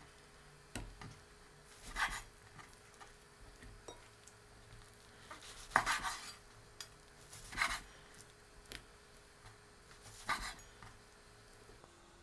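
Chef's knife cutting soaked dried shiitake mushrooms on a wooden cutting board: separate knocks of the blade on the board every second or few seconds, with small ticks between.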